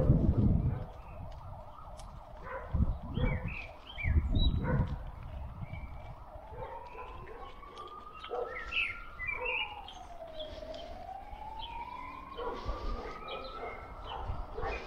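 An emergency-vehicle siren wailing, its single tone slowly rising and falling over a few seconds per sweep, plainest in the second half. Low rumbling surges from the bicycle riding over cobblestones near the start and about three and four and a half seconds in, with birds chirping.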